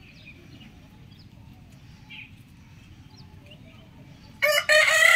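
Rooster crowing: a loud crow breaks in near the end after a quiet stretch with only faint chirping in the background.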